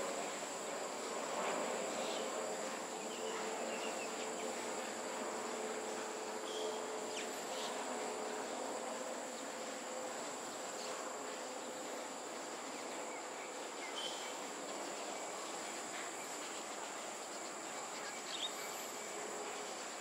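Insects buzzing steadily at a high pitch. A distant aircraft's rumble fades away over the first few seconds.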